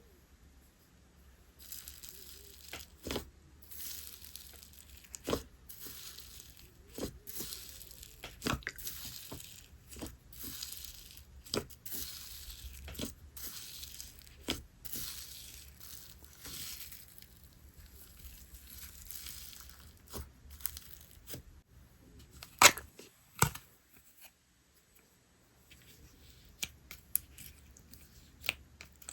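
Slime being stretched and squished by hand, giving a run of crackly, tearing sounds and sharp little pops about once a second. The two loudest pops come close together about three quarters of the way through, followed by a brief lull.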